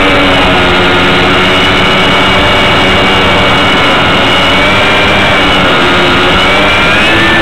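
An RC model plane's motor and propeller heard loud from a camera riding on the plane in flight, a whine that wavers a little in pitch, under heavy wind rush over the microphone.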